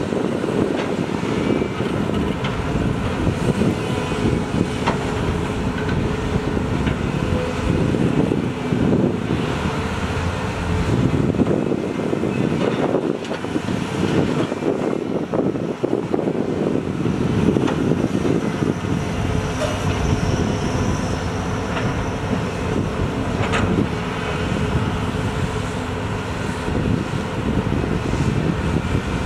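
Heavy diesel earthmoving machinery working: large excavators' engines and hydraulics running under load while loading dump trucks, a steady rumbling din with a couple of sharp knocks.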